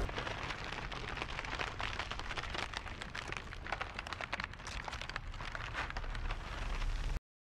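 Dense crackling and crumbling, like dry matter breaking apart, over a low rumble. It cuts off suddenly near the end.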